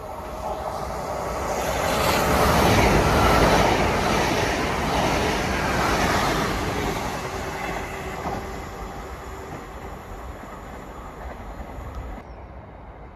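GWR Class 800 bi-mode express train passing close by on the near track: the rumble of its wheels and running gear grows to a peak a few seconds in, then fades as the coaches go by.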